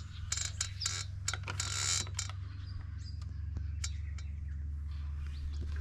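Quick light clicks and scrapes of a small metal awning bracket being handled and positioned against the metal sail strip, for about the first two seconds, over a steady low background hum.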